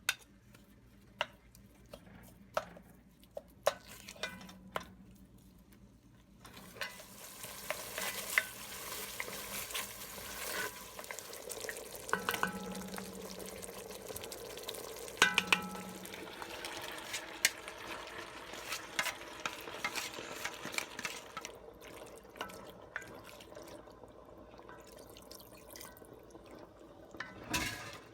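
A utensil clicks and taps against a pan. About six seconds in, a steady sizzle of frying starts, with stirring clicks and scrapes throughout, and the sizzle dies down near the end.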